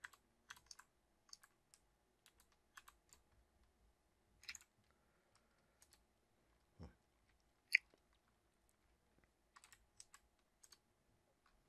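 Faint, scattered computer keyboard keystrokes: single taps and short runs of typing, with one louder key click about two-thirds of the way in.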